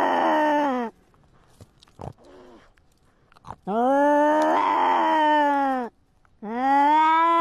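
Tabby-and-white cat meowing in long, drawn-out calls: the tail of one meow, then a second meow about two seconds long, then a third starting near the end, each bending slightly up and down in pitch.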